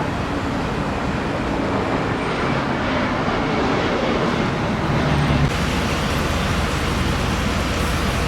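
Steady road traffic noise, with vehicles going by.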